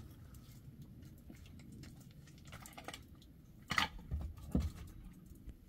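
Concrete blocks being handled and set down on a stack: scattered light clicks and scrapes, then a sharp knock a little over three and a half seconds in, followed by two dull thumps.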